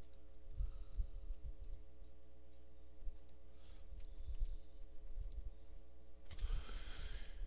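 A few scattered computer keyboard and mouse clicks, spaced well apart, over a steady electrical hum.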